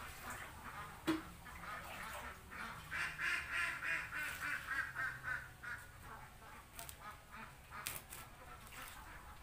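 Domestic ducks quacking in a fast run of calls, loudest from about three to five seconds in. A sharp knock sounds about a second in.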